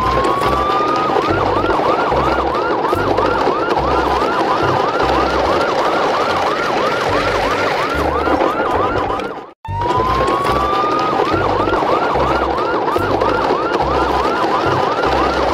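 Electronic siren: a tone rises for about a second, then breaks into a fast repeating yelp, about three cycles a second, over a low pulsing beat. It cuts out about nine and a half seconds in and starts over the same way, as a looped sound.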